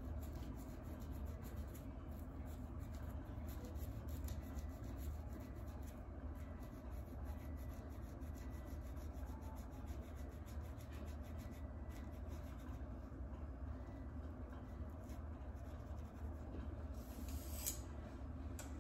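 Fine-tooth plastic comb scraping across a flaky scalp through the hair, a quick run of faint scratching strokes that loosen dry scalp flakes, with one sharper scrape near the end.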